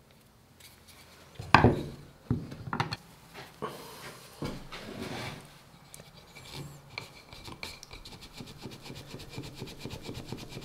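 Wood knocking on wood as pieces are handled on a workbench board, then a small wooden plaque rubbed back and forth against the board in quick, even strokes.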